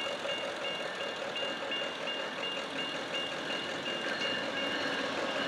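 Railroad grade-crossing warning bell ringing in quick, evenly spaced strokes as the crossing signals flash for an approaching train.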